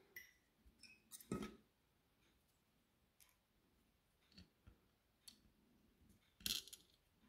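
Quiet, scattered clicks and taps of small plastic and metal parts being handled while a new circuit board is fitted to a lithium-ion battery pack's cells, with a thin tool working the board's metal tabs. Two sharper knocks stand out, about a second in and near the end.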